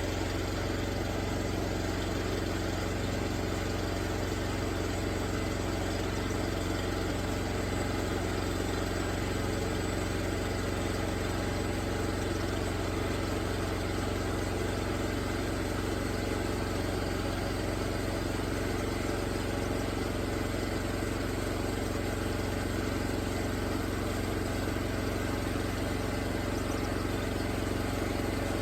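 Homemade band sawmill's engine running at a steady speed while the band blade makes the first cut through a pine log.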